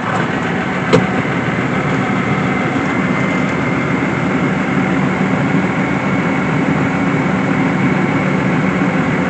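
Farm tractor engine running steadily just after being started, with one sharp click about a second in.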